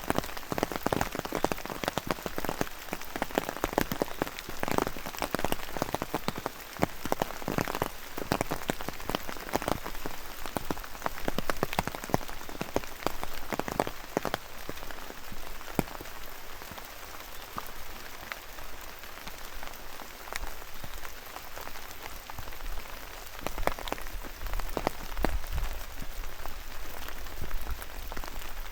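Rain falling, with many drops ticking sharply on nearby surfaces over a steady hiss; the drops are densest in the first half and thin out later, and a low rumble comes in near the end.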